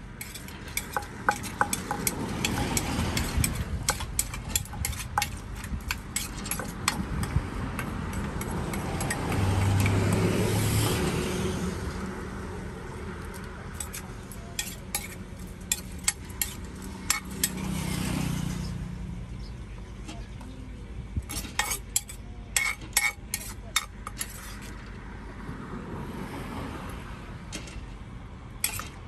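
Utensils clicking and knocking in a mortar as a Thai papaya salad is pounded and mixed, in quick irregular clusters. Passing traffic rumbles behind, swelling loudest twice, about a third of the way in and again past halfway.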